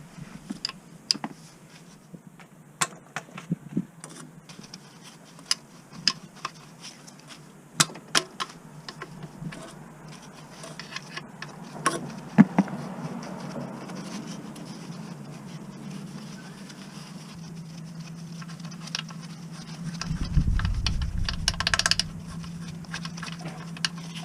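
Scattered sharp metallic clicks and knocks, like hand tools and small metal parts being handled, over a steady low hum, with a louder low rumble about twenty seconds in.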